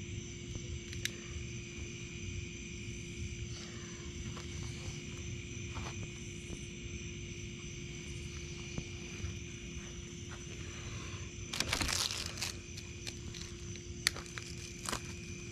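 Evening insects trilling steadily, with a few sharp pops from a wood campfire. A brief rustle of footsteps close by about twelve seconds in.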